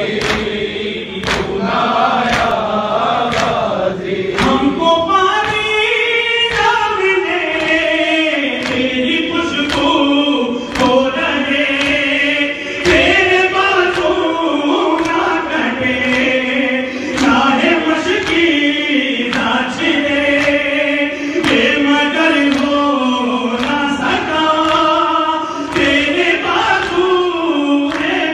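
A male voice chanting a mourning lament (noha) through a microphone with other voices joining, over a steady beat of open-handed chest-beating (matam) about once a second.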